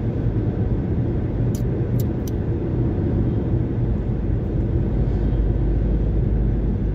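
Steady road and engine noise inside a moving car's cabin, a low rumble, with a few light clicks about two seconds in.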